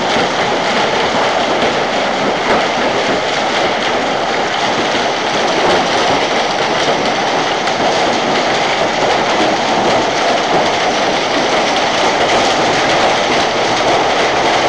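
Heavy hail with rain pelting down: a loud, steady, dense clatter of hailstones striking the ground.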